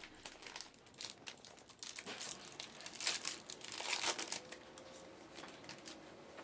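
Plastic wrapping on a trading card box or pack crinkling and tearing as it is opened, busiest in the middle few seconds.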